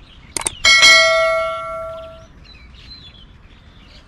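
Two quick mouse-click sound effects, then a bell ding that rings out and fades over about a second and a half: the sound effect of a subscribe-button animation.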